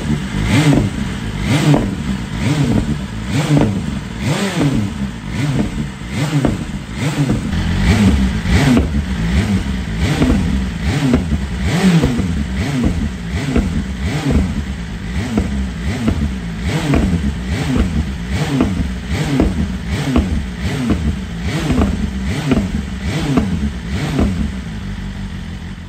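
A 2020 BMW S1000RR's inline-four engine revved in quick, repeated throttle blips, about one a second, each rising and falling back, through a Black Widow 200mm slip-on silencer with its baffle taken out. Near the end it settles back toward a steadier idle.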